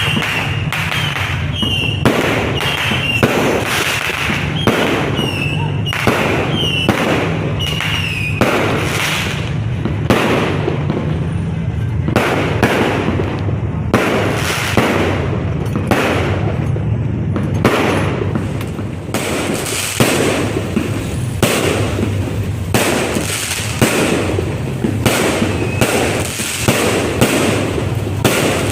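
New Year fireworks going off continuously: rapid sharp bangs and crackles, several a second, with short falling whistles after many of the bangs in the first several seconds.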